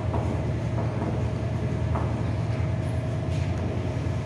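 A steady low hum, with a few faint ticks and scratches of chalk writing on a blackboard.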